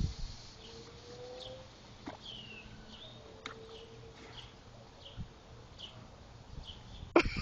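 Small birds chirping, short falling calls scattered throughout, with a sudden loud noisy burst near the end.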